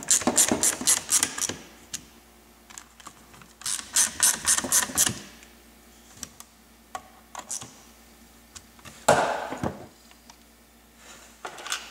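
Hand screwdriver driving small screws into a plastic fuse-box case and circuit board, heard as two runs of rapid clicking with scattered single clicks between. About nine seconds in there is a short burst of handling noise as the box is moved.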